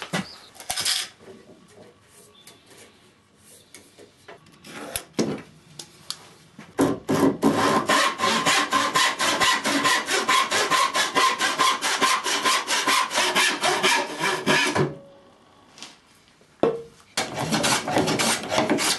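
Hand saw cutting through a wooden board in quick, even back-and-forth strokes for about eight seconds, after some scattered knocks. Near the end, another run of rapid rasping strokes on wood.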